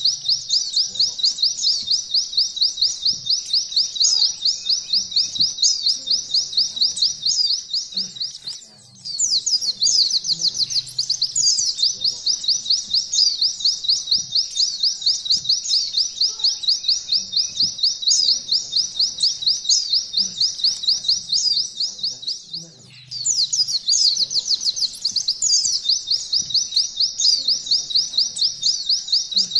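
White-eye (pleci) singing a long, rapid, high canary-style trill ('nembak kenari ngalun'), repeated quick falling notes run together with hardly a break. It stops briefly twice, about a third of the way in and again about three-quarters of the way through.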